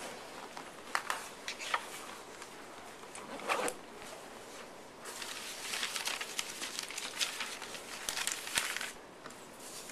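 Paper rustling and crinkling, with a few sharp taps in the first half, then a denser spell of crinkling from about halfway until shortly before the end.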